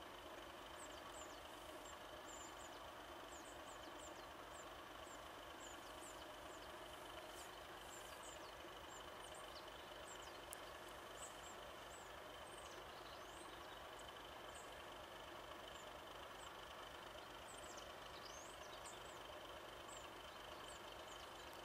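Faint, steady idle of a diesel rail vehicle: a low, even throb with a steady whine over it. Small birds chirp high above it throughout.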